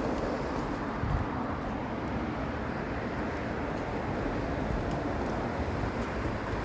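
Steady wind rushing, with low gusts buffeting the microphone.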